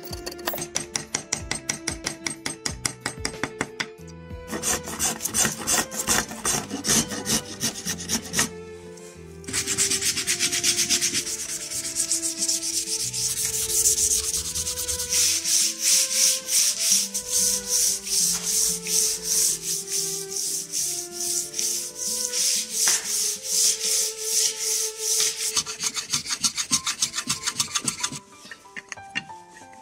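Hand sanding of a hardwood hand-plane body with sandpaper: quick back-and-forth rubbing strokes, about two to three a second, louder from about ten seconds in. Soft background music plays underneath.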